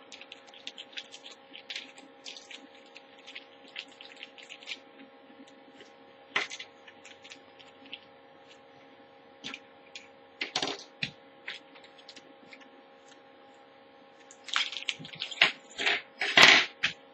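Small plastic bags being opened and emptied by hand: a run of small crinkles and clicks, sparse through the middle, with a louder burst of rustling and handling near the end. A faint steady hum runs underneath.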